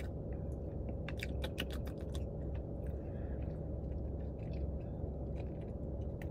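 Close-up eating mouth sounds: wet lip smacks and chewing clicks while she licks her fingers, coming thickest about a second in. Under them runs a steady low hum in the car cabin.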